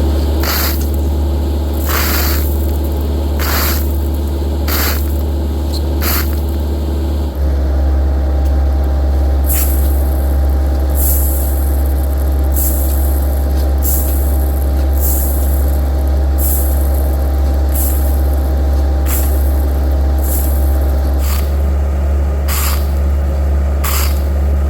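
Heavy excavating machine's diesel engine running steadily, with short hissing bursts repeating every second or two; the engine sound shifts abruptly about seven seconds in.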